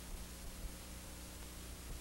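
Steady hiss with a low electrical hum and no other sound: the empty soundtrack of a transferred silent film.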